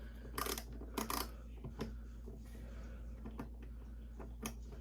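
Small screwdriver clicking and scraping against the plastic screw and battery cover of a tiny toy TV, a handful of sharp little clicks, the loudest about half a second and a second in.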